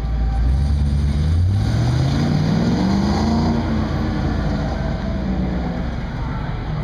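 Engine of a late-1950s Chevrolet pickup accelerating hard on an autocross course, its pitch climbing steadily for a couple of seconds, then dropping back and running unevenly as it eases off.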